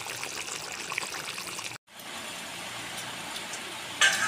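Fish curry gravy simmering in a pan, a steady bubbling hiss with small crackles. It breaks off for a moment about two seconds in and then goes on, with a louder short burst near the end.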